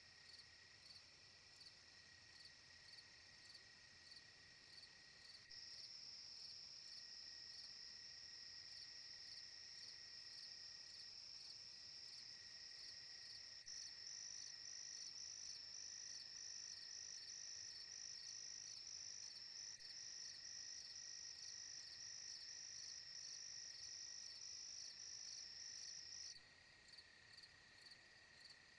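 A steady chorus of crickets and other night insects trilling at several pitches, the highest with a fast even pulse. The chorus gets louder a few seconds in and drops back near the end.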